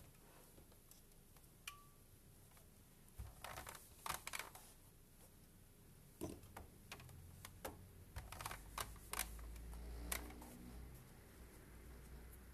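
Faint scattered taps, clicks and rustles of handling as small fabric pieces and a steam iron are moved about on a pressing surface, busier in the second half.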